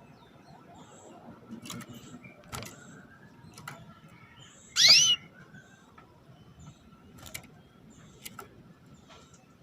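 Female canary giving one loud, quick rising 'cuit' call about five seconds in, the kind of call a hen uses to call a male. Faint sharp clicks come now and then around it.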